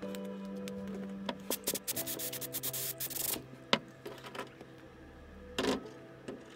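Soft background music with a spell of scratchy rubbing and clicking noises about one to three and a half seconds in, and another short scratch near the end.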